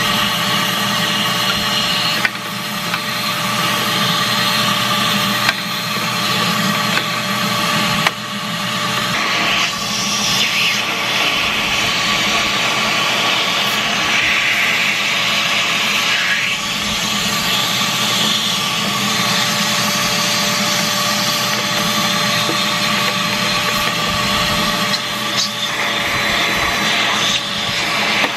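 Vacuum cleaner running steadily, sucking lint out of a sewing machine's bobbin and hook area through a mini vac attachment's flat nozzle. The sound shifts a little now and then.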